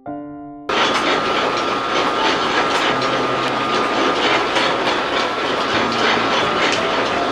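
Machinery running with a steady rattling clatter and a high whine, cutting in suddenly just under a second in, after a few held piano notes.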